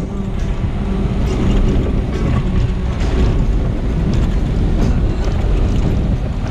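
Wind rushing through an open-top Jeep and buffeting the microphone, over a steady rumble of tyres and engine as it drives along a dirt road.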